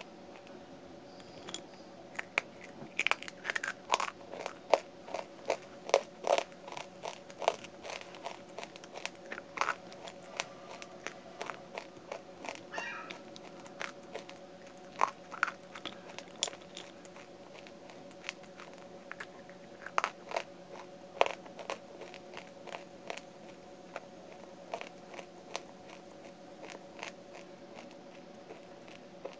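Teeth biting and crunching dry lumps of edible clay (nkomatt) close to the microphone: a rapid run of sharp cracks that thins out over the last few seconds.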